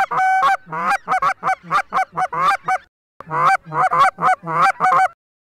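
Canada goose call blown in fast runs of honks and clucks, about four notes a second, each note breaking from a low to a high pitch, with a short breathing pause about three seconds in: calling an incoming flight of Canada geese down to land.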